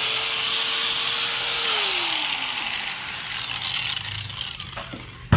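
Makita angle grinder, freshly rebuilt with new gears and grease, running at full speed with a high whine, then switched off about a second and a half in and winding down, its pitch slowly falling. A sharp knock near the end.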